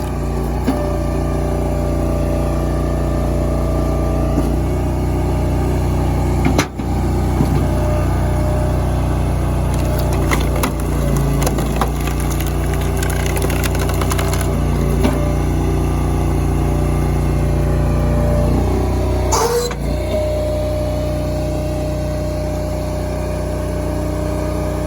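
Engine of a hydraulic firewood splitter running steadily at a constant speed. There is a brief break in the sound about six and a half seconds in, and a short sharp sound near the end.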